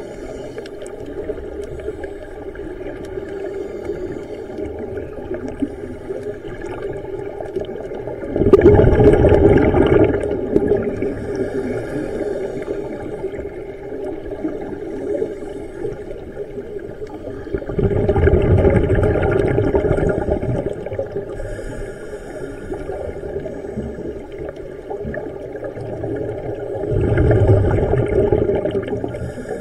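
Scuba regulator exhaling bursts of bubbles three times, about every nine seconds, heard underwater through a camera housing over a steady low hum.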